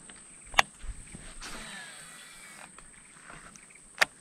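Two sharp clicks from a baitcasting reel being handled, about three and a half seconds apart, over a steady high-pitched whine.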